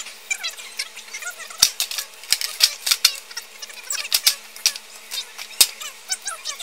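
Sped-up time-lapse audio of plastic tennis-ball canisters being loaded into a metal shopping cart: a rapid, irregular clatter of sharp knocks and clicks, with high-pitched warbling chirps between them.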